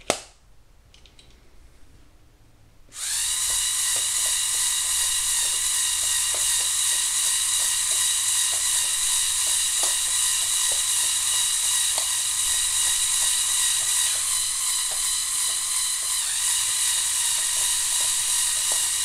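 Lego Technic coal-mining combine model's electric motors and plastic gear trains running, starting about three seconds in with a steady high-pitched whine over faint rapid ticking, and stopping right at the end. A short click comes at the very start.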